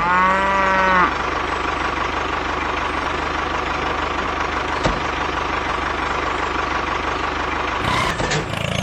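A horn-like note holds steady for about a second, then a mini truck's engine-like motor drone runs on steadily with a thin whine, broken once by a sharp click near the middle.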